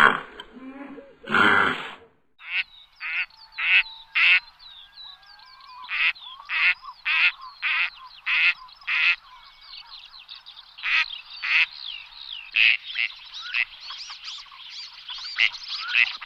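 A flock of birds calling, with many short, repeated honk-like calls over a steady background of chatter from the flock.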